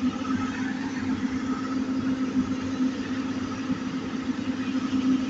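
Diesel engine of a Komatsu PC200 hydraulic excavator running steadily, its pitch stepping up slightly at the start and then holding.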